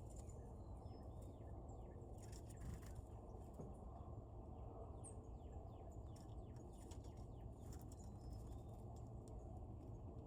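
Faint wild birds chirping: many short, high chirps and chips scattered throughout, over a steady low background rumble.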